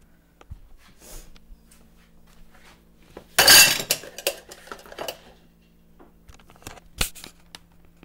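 Bowls clinking and knocking together as they are gathered up and carried, with one loud clatter of stacked dishes about three and a half seconds in, a few lighter knocks after it, and a single sharp knock near the end.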